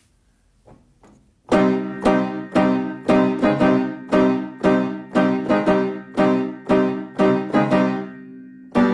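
Piano playing a song's introduction: after a near-silent pause of about a second and a half, steady repeated chords struck about twice a second, each ringing and fading.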